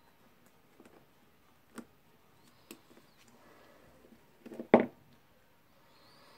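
A pick hook working at the retaining ring on a Bosch GDR 18-Li impact driver's anvil: faint scattered metal clicks, then a short burst of sharp knocks and a clink about three-quarters of the way through as the parts are worked loose to get the anvil out.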